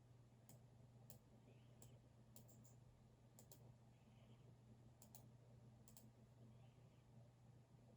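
Quiet, scattered clicks from a computer keyboard and mouse, about a dozen with uneven gaps and some in close pairs, over a low steady hum.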